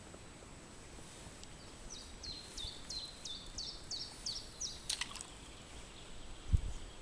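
A small songbird singing a run of about eight quick, high repeated notes, roughly three a second, over a faint outdoor hiss. A click follows, then a single dull low thump near the end.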